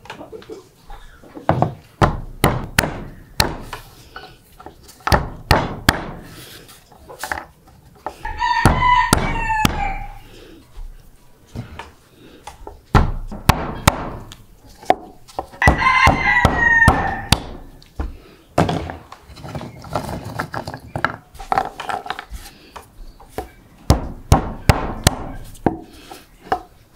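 A rooster crows twice, about eight seconds in and again a little past halfway, each crow lasting about two seconds. Around the crows runs a string of sharp knocks and thuds, some on their own and some in quick runs.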